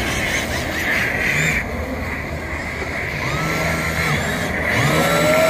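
Radio-controlled drift cars running on the track: electric motors whining up and down in pitch with the throttle over a steady noisy background.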